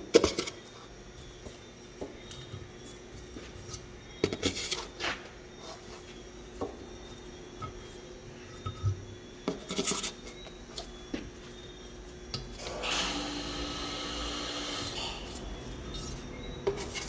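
Steel engine valves from a BMW M10 cylinder head being pulled out and pushed into holes in a sheet of cardboard: scattered light metallic clicks and taps. Near the end there is a rubbing scrape lasting about two seconds.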